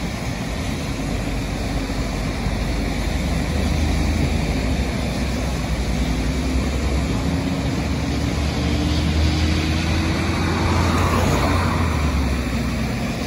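Interstate traffic passing on wet pavement: a steady hiss of tyres on the wet road under a low engine drone from cars and tractor-trailers, with one tone rising slowly through the middle as a vehicle goes by.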